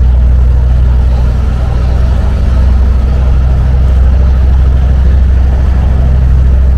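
A river taxi boat's inboard engine running steadily at cruising speed: a loud, even low drone.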